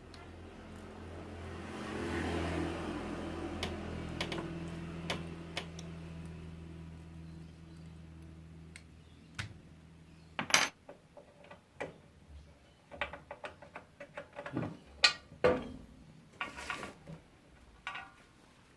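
A low steady hum swells and slowly fades over the first half. Then metal parts of a mini bandsaw clink and knock repeatedly as they are handled and fitted.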